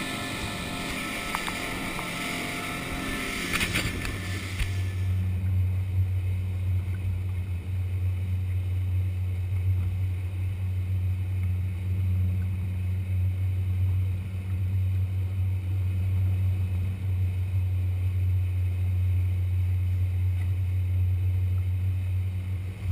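For the first few seconds a hissy mix of engine and rushing noise. Then, about five seconds in, the twin outboard motors of a boat trolling offshore take over as a steady low drone, with little high-pitched sound above it.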